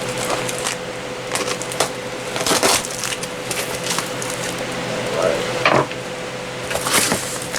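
Cardboard packaging being worked open by hand, with rustling, crinkling and irregular sharp cracks and snaps, several of them louder, over a steady faint hum.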